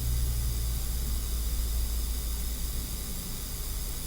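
Steady hiss with a low hum underneath; the hum fades about three seconds in.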